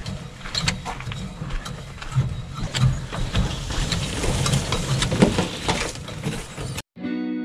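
Footsteps and the knocking and creaking of a canoe carried overhead along a portage trail, heard from under the hull. About seven seconds in it cuts off and electric guitar music begins.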